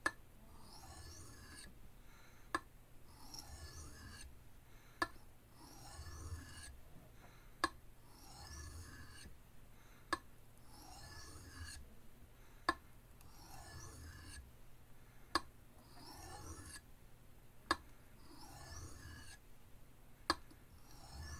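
Knife blade drawn across an oiled Arkansas sharpening stone in slow, even strokes: faint hissing scrapes, each cycle marked by a sharp click about every two and a half seconds.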